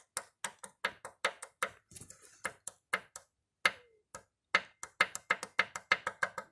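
Piston of a Toyota 1G-FE BEAMS straight-six being rocked in its worn cylinder bore, knocking metal on metal in quick sharp clicks, about four a second, with a brief pause near the middle. The free play shows excessive piston-to-wall clearance, the cause of the engine's piston knock.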